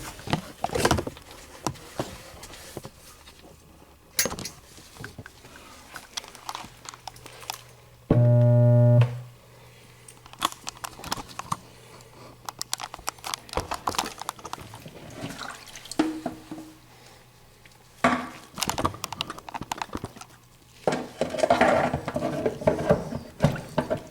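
Garbage disposal motor humming for about a second without spinning, the hum of a jammed disposal, with a faint hum lingering for several seconds afterward. Scattered clicks and knocks of tools working at the unit come before and after.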